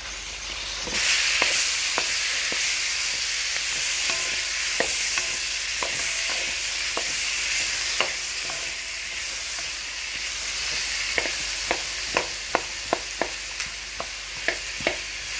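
Chopped tomatoes, onions and cashews sizzling in hot oil in a metal pan as they are sautéed until soft, the sizzle growing louder about a second in. A wooden spatula stirs them, knocking and scraping against the pan, and the knocks come more often near the end.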